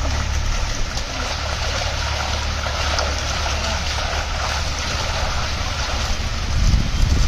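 Steady noise on a fishing boat: a low engine rumble under a hiss of wind and water.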